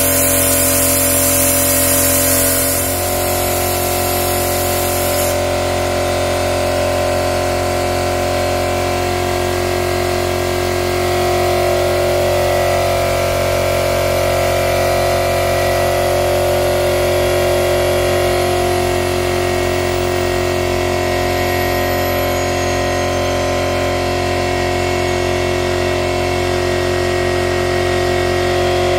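A machine running steadily with a constant hum. A high air hiss stops a few seconds in, as the hum changes pitch.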